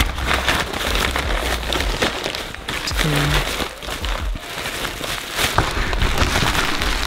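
Brown kraft packing paper crumpling and bubble wrap crinkling as a part is wrapped by hand: a dense, continuous run of rustles and crackles.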